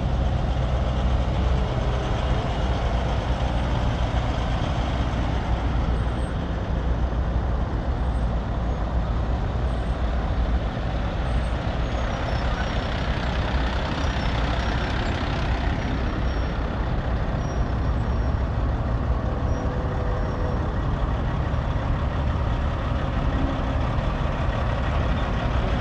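Heavy diesel truck engine running steadily at a low, even pitch.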